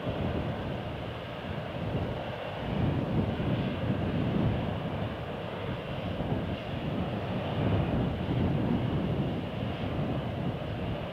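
Steady outdoor rumble with a hiss, rising and falling gently in loudness, with no distinct events.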